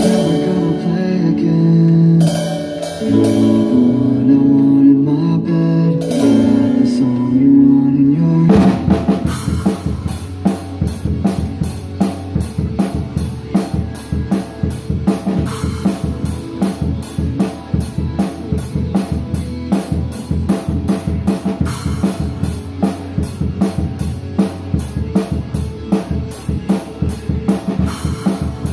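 Acoustic drum kit played along to a recorded rock song. For the first eight seconds or so the song's sustained melody dominates with a few cymbal crashes. About eight and a half seconds in, the kit comes in with a fast, steady beat of kick, snare and cymbals, about four strokes a second.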